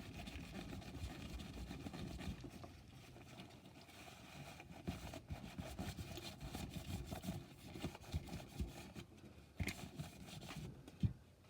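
Faint, irregular rubbing and scrubbing of a lint-free towel wiping old thermal paste off the graphics card's copper heatsink, with a couple of light clicks near the end.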